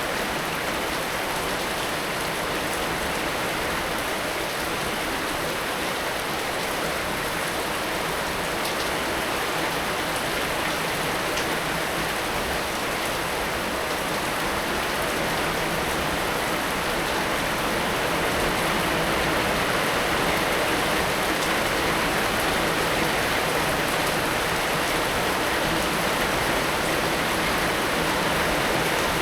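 Heavy rain falling steadily, a dense even hiss of many drops, growing slightly louder about two-thirds of the way through.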